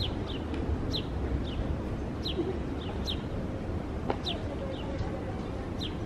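A small bird chirping again and again, short high notes that drop in pitch, one or two a second, over a steady low outdoor rumble.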